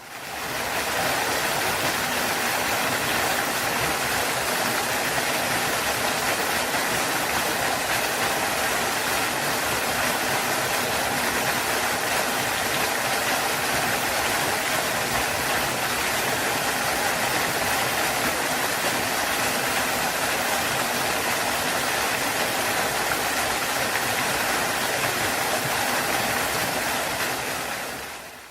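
Waterfall rushing: a steady, even roar of falling water that fades in at the start and fades out near the end.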